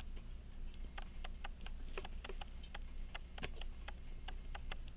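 Pocket watch movement ticking steadily at about five beats a second, its balance running on a fully wound mainspring, with some ticks louder than others.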